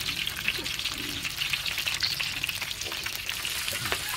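Cucur udang (prawn and bean-sprout fritters) deep-frying in a wok of hot oil: a steady sizzle full of small crackles and pops.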